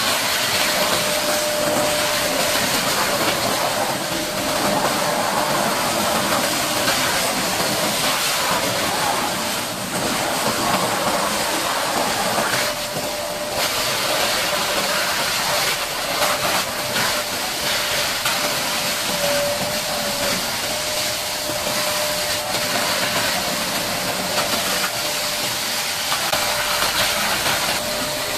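High-pressure washer jet spraying water, a loud steady hiss with a constant whine underneath.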